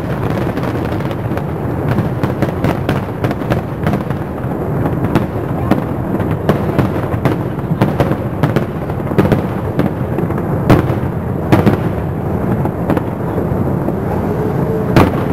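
Aerial fireworks display: a rapid, unbroken run of bangs and crackles over a constant rumble. The loudest reports come about eleven seconds in and again near the end.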